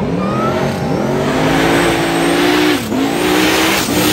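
Two drag-race cars, one a Fox-body Mustang, accelerating hard down the strip and past. The engine note climbs in pitch, falls at a gear change about three seconds in, then climbs again.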